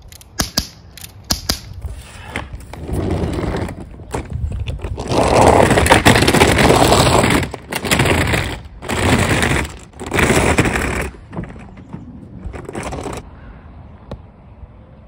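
A few sharp cap-gun shots from a toy revolver, then a hard-shell suitcase rolled and dragged over rough, cracked asphalt, its wheels rattling and scraping in several loud runs, the loudest a few seconds in.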